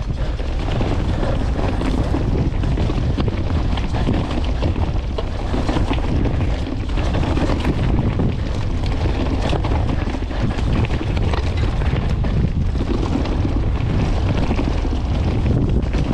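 Wind buffeting the microphone of a camera riding along on a mountain bike, over the steady rumble of the tyres, with frequent small clicks and rattles.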